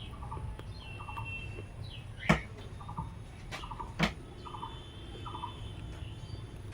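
Small birds chirping and trilling in short repeated calls, with two sharp cracks, one a little over two seconds in and one about four seconds in.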